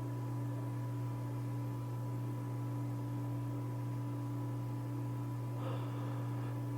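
Old Jacksonville Williamsburg ceiling fan running, its motor giving a steady low hum with fainter higher tones over it. A brief faint rustle near the end.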